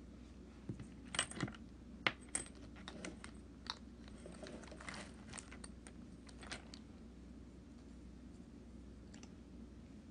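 Faint, irregular clicks and taps of small hard items being handled, clustered over about the first seven seconds.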